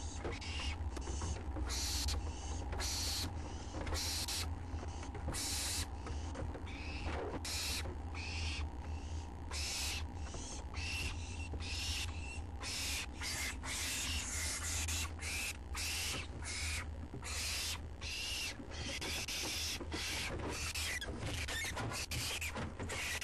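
Owlets in a nest box giving repeated raspy, hissing begging calls for food, about one or two a second at first and coming faster after about twelve seconds. A steady low hum runs underneath.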